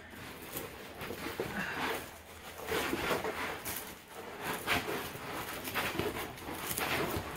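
Rustling and crinkling of a large diamond-painting canvas and its clear plastic cover film as it is handled and unrolled, coming and going irregularly.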